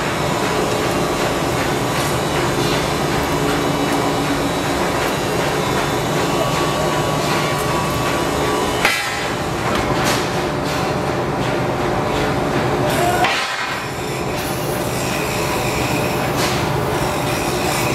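Metal workshop noise: scattered clanks and hammer-like strikes of steel over a steady background din. The sound changes abruptly about nine seconds in and again about thirteen seconds in.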